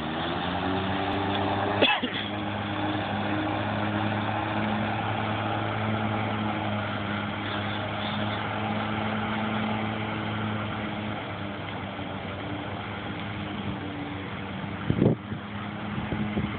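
Autonomous robotic lawnmower running as it drives off across the grass: a steady motor hum that rises briefly in pitch as it starts, then fades after about eleven seconds. A sharp knock about two seconds in and a few thumps near the end.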